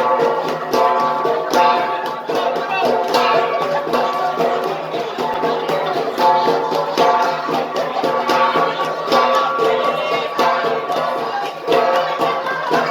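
An ensemble of gangsa, flat bronze gongs, beaten in a steady, fast interlocking rhythm, each stroke a sharp strike that rings on, the ringing tones overlapping into a continuous metallic chime.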